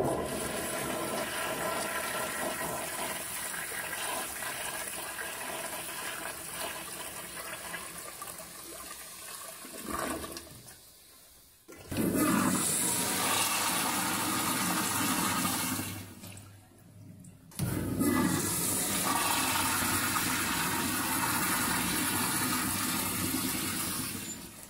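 An American Standard Afwall wall-hung toilet flushing: a rush of swirling water that starts suddenly and fades over about ten seconds. Then Jet-Brook urinals flush twice, each a rush of water starting suddenly and lasting about five seconds.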